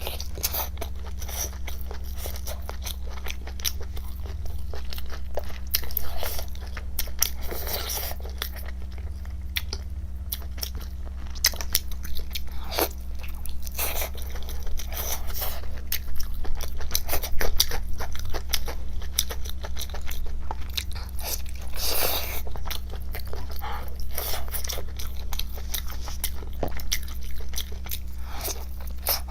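A person biting and chewing food close to the microphone, with irregular crisp crunches and wet chewing throughout. A steady low electrical hum sits underneath.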